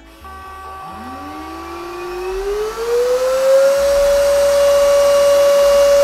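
BlitzWolf BW-AR182 cordless stick vacuum switched on: its motor whine rises in pitch over about three seconds as it spins up, then holds a steady pitch over a rush of air.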